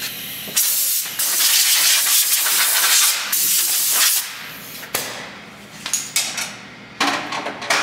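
Hand-held spray nozzle hissing in one long blast of about three and a half seconds, then a string of short bursts.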